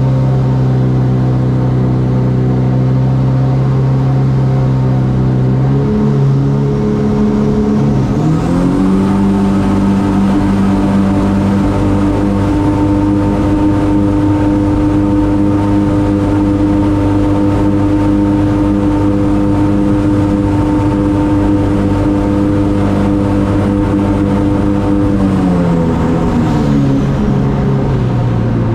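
Turbocharged Honda K-series four-cylinder engine in a mini jet boat on a wide-open-throttle speed run: the revs climb in two steps to a high, steady pitch that holds for about fifteen seconds, then drop back near the end. A faint high whine rises and falls along with the engine.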